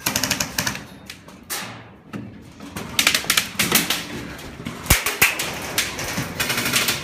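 Airsoft guns firing in rapid full-auto bursts, a fast clatter of shots: one burst at the start, another about three seconds in, and more from about five seconds in.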